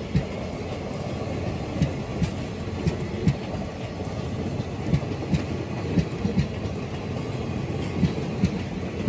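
ICF passenger coaches rolling past, their wheels knocking over rail joints in pairs of clacks every second or so, over a steady rumble of rolling wheels.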